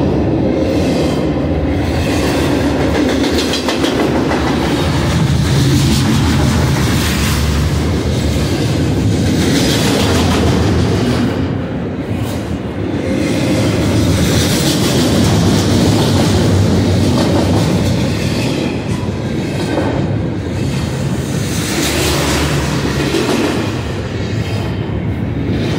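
Double-stack intermodal well cars of a freight train rolling past: a loud, steady rumble and rattle of steel wheels on the rails. It eases briefly about twelve seconds in and again near the end.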